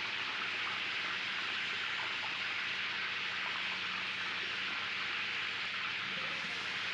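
Potato pieces and whole tomatoes deep-frying in hot oil in a large wok: a steady, even sizzling hiss.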